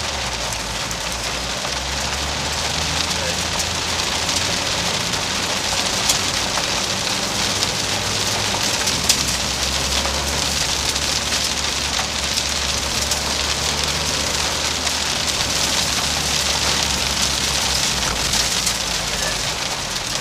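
Cabin noise of a Škoda Fabia RS TDI rally car: a steady hiss over a low engine drone whose pitch shifts a few times.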